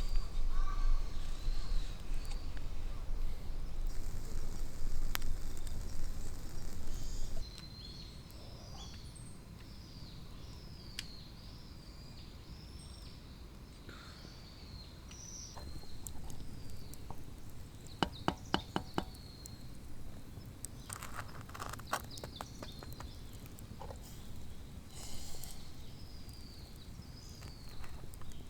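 Forest ambience with a small bird calling in repeated short, high chirps, over a low rumble that drops away about a quarter of the way in. Past the middle come a quick run of about eight sharp knocks, and a few more knocks a few seconds later.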